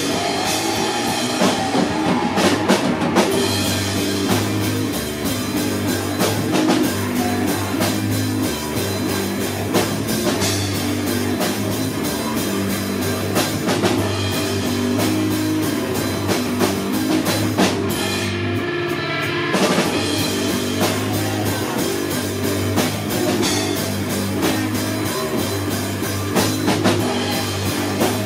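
Live rock band playing: electric guitar and bass over a drum kit, with the cymbals dropping out for about a second and a half about two-thirds of the way through.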